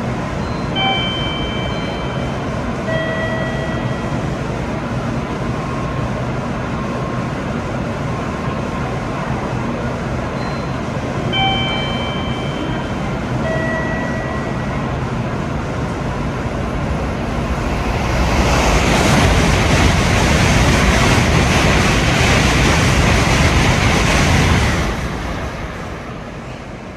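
N700-series Tokaido Shinkansen passing through the station at speed: a loud rush of noise that builds about two-thirds of the way in, lasts about six seconds and fades. Before it, a steady rumble with a short set of electronic chime tones heard twice.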